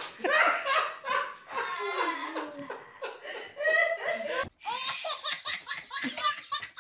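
Laughter throughout, broken briefly about four and a half seconds in; after the break, two babies laughing hard.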